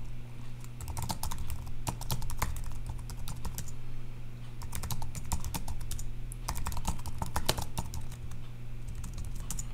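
Typing on a computer keyboard: irregular runs of quick key clicks with short pauses between them, over a steady low hum.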